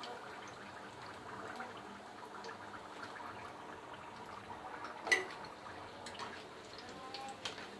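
Chicken samosas deep-frying in hot oil, golden and nearly done: a soft, steady sizzle and bubbling. A single sharp knock about five seconds in.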